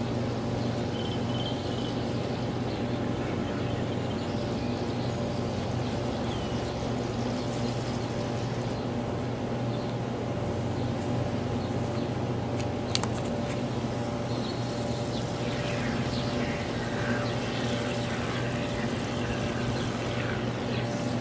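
Aerosol cans of shaving cream being sprayed onto paper plates in short hisses, over a steady machine hum with several held tones. A single sharp click comes about 13 seconds in.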